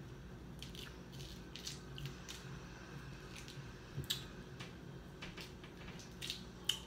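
Hands cracking and peeling the shell of boiled shellfish: scattered crackles and wet squishes, with the sharpest snaps about four seconds in and near the end.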